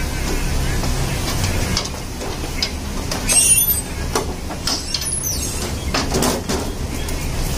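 Sheet-metal rear cover of a Canon iR photocopier scraping and rattling against the frame as it is levered loose with a screwdriver, with a loud scrape about halfway through and several knocks after it. A steady low hum runs underneath.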